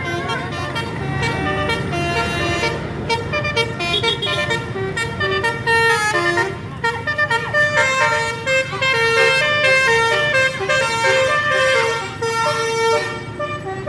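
Indonesian bus 'telolet' horn playing a melody of held notes that step in pitch several times a second, with the bus engine running underneath.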